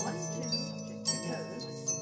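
Music: a tinkling melody of bell-like struck notes over held lower tones, with a louder note about a second in.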